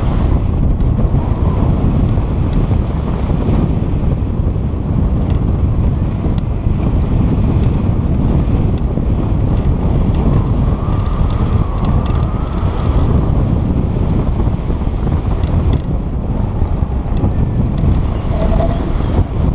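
Steady, loud airflow buffeting the microphone of a camera mounted on a hang glider in flight.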